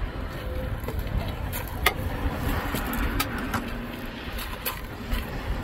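Steady low rumble of wind on the microphone, with a few sharp clicks.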